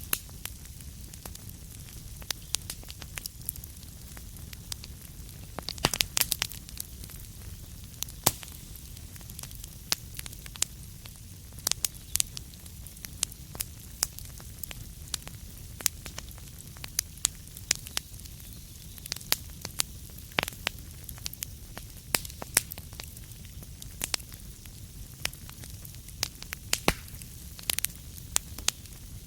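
Wood fire crackling in a fireplace: irregular pops and snaps, some in quick clusters, over a steady low rumble and hiss.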